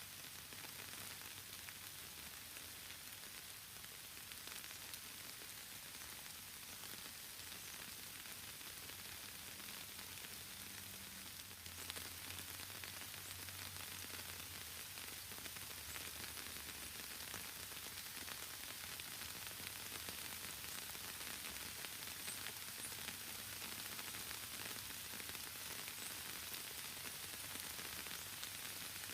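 Steady rain falling in the forest: an even hiss that grows a little heavier about halfway through.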